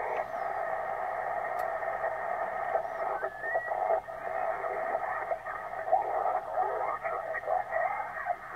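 Yaesu FT-450D HF transceiver's receiver audio on 80 metres lower sideband as the tuning dial is turned: band noise and garbled fragments of off-tune signals, with a whistling tone that steps up in pitch about three seconds in.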